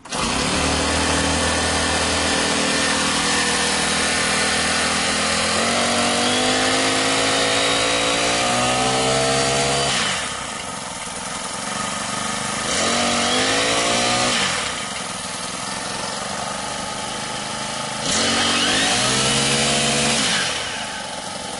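Honda GX35 35cc four-stroke trimmer engine driving a Stihl KombiSystem shaft and trimmer head with no load. It runs steadily, is revved up three times with a rising whine and drops back to idle between revs, then cuts off at the end.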